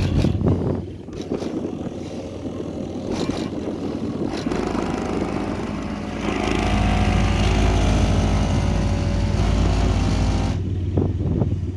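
Skar Audio VD-10 shallow-mount 10-inch subwoofer playing deep bass, heard from outside the vehicle as a heavy low rumble. The bass gets deeper and louder about six seconds in and falls away near the end.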